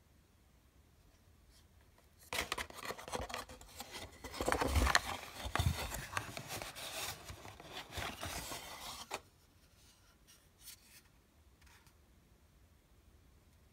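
Plastic wrapping and cardboard packaging rustling and scraping as items are handled and lifted out of the box. It is a dense run of crinkles, rubs and small clicks that starts about two seconds in and stops abruptly about nine seconds in.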